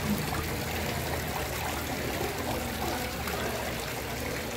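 Water falling steadily from an indoor decorative water-wall fountain, a continuous trickling splash.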